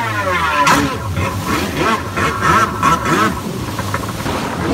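Jet ski (rescue personal watercraft) engine revving, its pitch rising and falling over and over as it rides through the surf.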